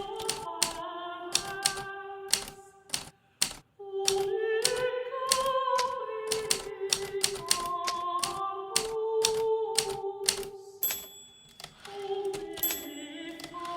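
Hermes Baby portable manual typewriter, its keys striking in an irregular run of sharp clacks, about two or three a second. Underneath is background music with a slow melody of held notes, which breaks off briefly twice.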